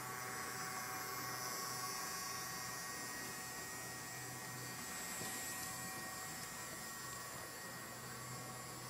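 Hornby Class 08 diesel shunter model running on the layout, its sound decoder playing a steady low diesel engine hum through the model's small speaker, with a faint hiss over it.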